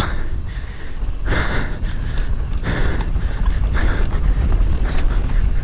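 Wind buffeting an action camera's microphone as a mountain bike descends a dirt trail at speed, over a steady low rumble from the tyres and bike. A few short rushes of noise come about every second and a half.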